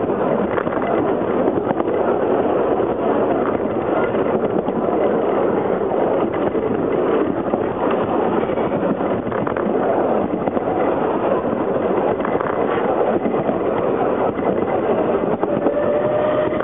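Narrow-gauge railway train running along the track, heard from the rear carriage: a steady rolling rumble of wheels on rail with constant fine rattling and clicking. A faint thin tone comes in near the end.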